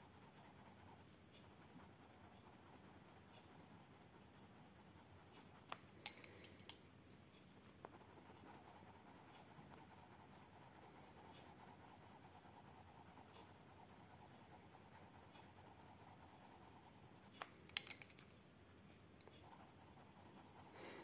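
Faint scratching of a Derwent Chromaflow coloured pencil shading on paper. Two short clusters of sharp clicks come about six seconds in and again near eighteen seconds in.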